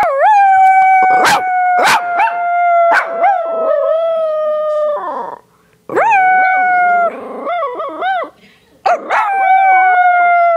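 Schipperke dog howling in long drawn-out notes, broken up by wavering rising-and-falling 'woo' notes and a few short yips, with two brief pauses.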